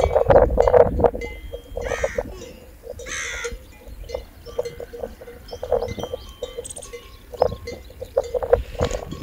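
Bells on grazing livestock clanking irregularly as the animals move. There are a couple of short animal calls about two and three seconds in.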